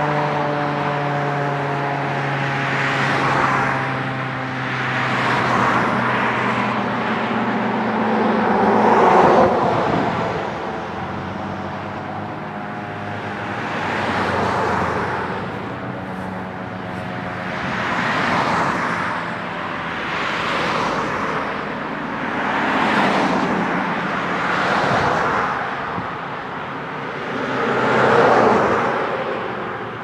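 Federal Signal 2001-130 outdoor warning siren sounding the attack signal, its wailing tone sliding down in pitch and fading over the first ten seconds, then falling again more faintly around the middle. Louder swells of road traffic pass by several times over it.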